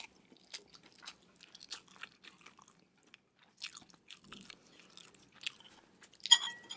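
Close-miked chewing and biting of food, with many small smacks and clicks and a louder sharp sound near the end.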